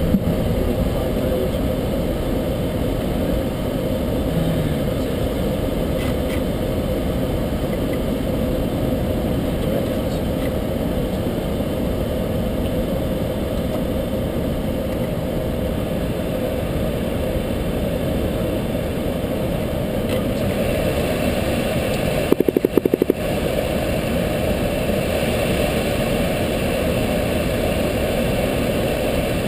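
Light aircraft's engine and propeller droning steadily in the cabin during the climb after takeoff. There is a brief stuttering dropout about three quarters of the way in.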